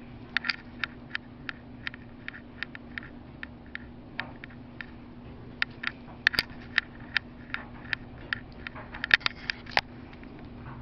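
Sharp light clicks at an even pace, about three a second, over a steady low hum. They pause for about a second and a half a little before the middle, then resume and cluster more densely near the end.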